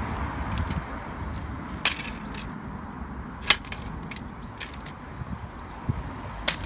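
Small plastic toy monster trucks knocking and clattering on concrete: a scattering of sharp clicks, with one louder knock about halfway through, over a steady outdoor hiss.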